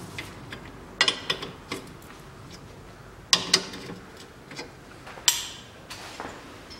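Metal wrench and socket working the strut-to-steering-knuckle bolts of a car's front suspension: sharp metallic clicks and clinks in three short clusters, the last one louder with a brief ringing tail.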